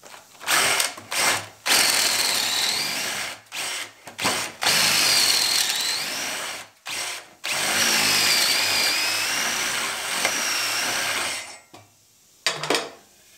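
Cordless drill boring a half-inch hole into the end grain of a log, run in several short spurts and then two longer runs; the motor's whine dips in pitch as the bit bites and recovers, and it stops about two seconds before the end, followed by a few clicks.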